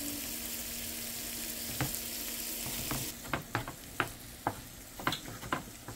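Smoked pancetta and onion sizzling steadily in a frying pan. From about three seconds in, a knife chops parsley on a plastic cutting board in sharp knocks, two to three a second.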